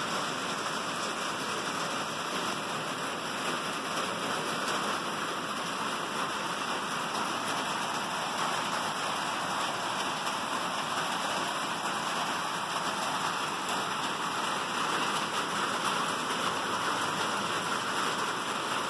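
Steady rain: an even, unbroken hiss of rainfall that holds at the same level throughout.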